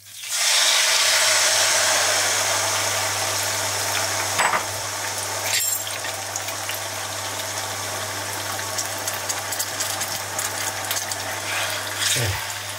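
Piquillo pepper strips dropped into hot olive oil with fried garlic in a frying pan: a sudden loud sizzle that slowly dies down, with a couple of light knocks about four and a half and six seconds in.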